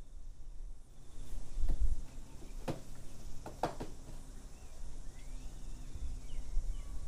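Wind buffeting the microphone in gusts. Three sharp clicks come around the middle, and there are faint rising chirps near the end.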